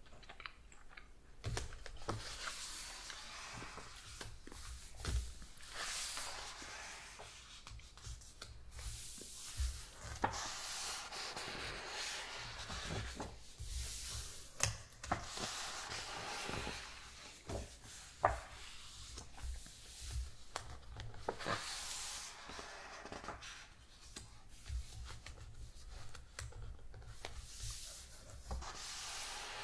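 Pages of a large hardcover book being turned and brushed by hand: repeated papery swishes and rubbing of the pages, with a few sharp page snaps.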